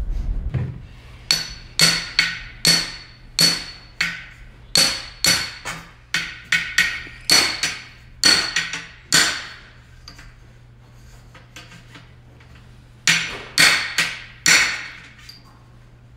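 A hammer drives a flaring tool into the end of soft type K copper water tubing to form the flare. About fourteen sharp, ringing metal blows come roughly two a second, then after a pause of a few seconds there are three more.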